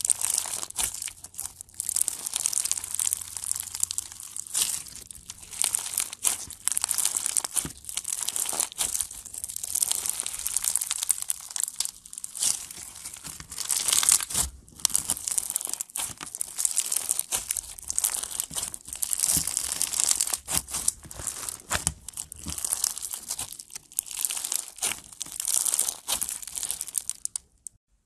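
Bead-filled crunchy slime squeezed and kneaded by hand: a dense crackling and popping as the beads press and shift against each other, with short pauses. It stops shortly before the end.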